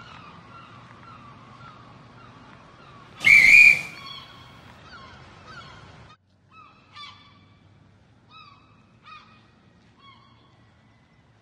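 Gulls calling in harbour ambience: repeated short, honk-like cries that thin out and fade toward the end, with one much louder short blast about three seconds in.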